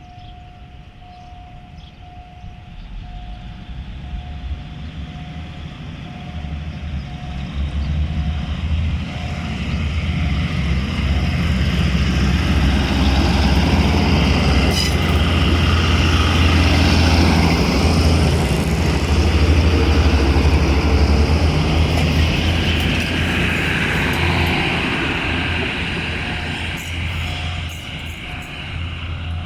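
Diesel locomotive hauling a passenger train past, its deep engine rumble building for about ten seconds, loudest in the middle, then easing off as it moves away. A faint repeating tone sounds at the start and again near the end.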